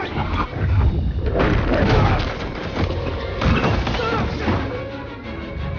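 Film fight sound effects: heavy thuds and slams of bodies and blows striking, with grunts and short cries from the fighters.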